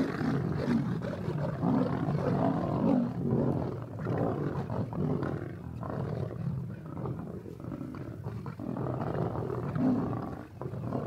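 Several lions growling and snarling at once while feeding together on a carcass. The rough, overlapping calls run on without a break: the sound of the pride squabbling over the meat.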